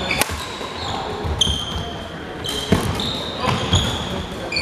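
Badminton rally on a wooden sports-hall floor: a few sharp racket strikes on the shuttlecock and repeated short high squeaks of players' court shoes, in an echoing hall.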